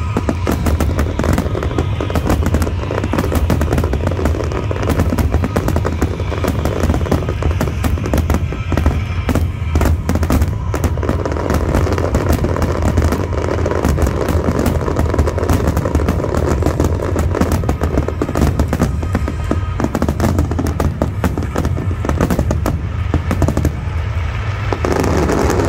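Fireworks display crackling and popping without a break, many small bursts close together, with music playing underneath.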